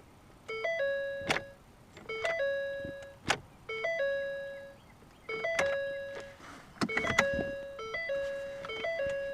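Car's electronic warning chime repeating about every 1.5 s, two quick notes then a held note, from a 2014 Ford Fusion that will not crank. A few sharp clicks come in between.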